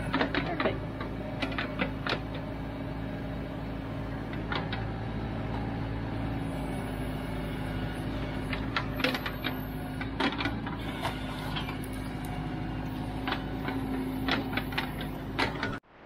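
Branson tractor's diesel engine running steadily while its BH200 backhoe digs wet mud, with scattered clanks and knocks from the bucket and linkage.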